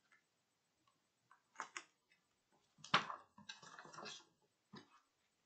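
Faint scattered clicks and rustling of a book being handled and opened, with a sharper knock about three seconds in followed by about a second of page rustle.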